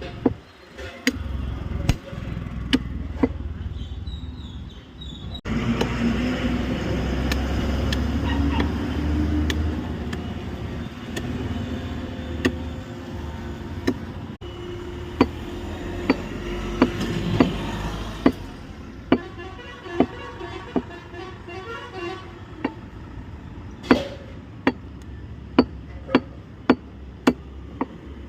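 Cleaver chops striking through mutton leg meat and bone, sharp single blows about a second apart, with quicker runs of blows in the middle and near the end. Steady traffic rumble underneath, louder for the first half.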